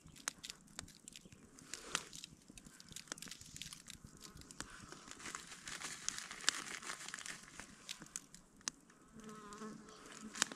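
Plastic food packaging crinkling and rustling as it is handled, with many small sharp crackles. A fly buzzes close past about nine seconds in.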